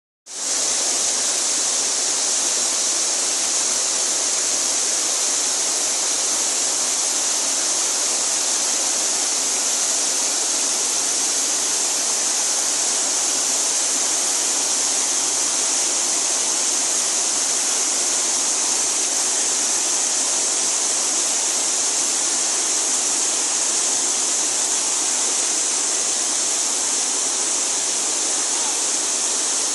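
Waterfall rushing: a steady, unbroken hiss of falling water, bright and even, coming in just after the start.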